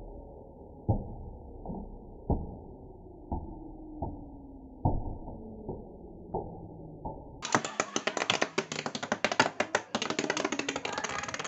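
Scattered muffled knocks and taps, about one a second. Then, about seven seconds in, a dense, fast, irregular clattering rattle.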